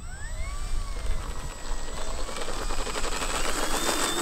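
Electric motor and propeller of a 1200 mm GeeBee RC model plane spinning up for a takeoff roll on a 3-cell battery: a rising whine that levels off, then climbs again near the end.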